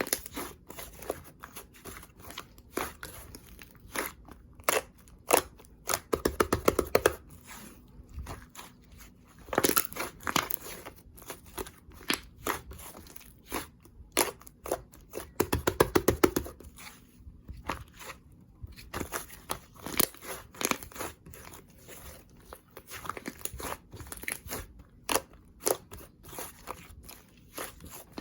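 Slime being squished and poked by hand, giving a long run of sticky clicks and pops. A few times it breaks into quick crackling bursts as air pockets pop.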